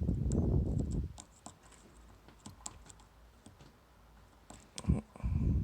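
Small sharp clicks and ticks of a dimple pick working the pins inside a Mul-T-Lock Interactive cam lock under tension, a scattered run through the middle. Low rumbling handling noise of the lock and tools being held comes in the first second and again near the end, and is louder than the clicks.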